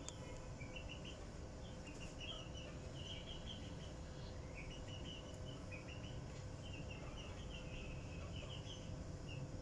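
Birds chirping in quick runs of short high notes that recur throughout, over a steady low rumble.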